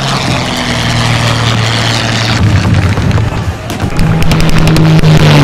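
Battle sounds of booms and gunfire under music with held low notes that change pitch in steps. A quick run of sharp shots comes near the end.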